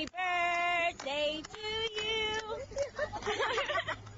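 Voices singing a few long held notes as a birthday cake with lit candles is held out, then higher, quick, wavering voices about three seconds in.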